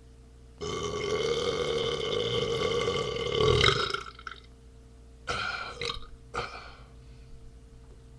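A long burp of about three seconds that swells to its loudest just before it ends, followed by two short burps.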